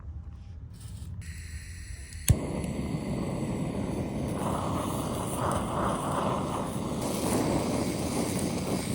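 Gyoza frying in a pan: a sharp knock about two seconds in, then steady sizzling.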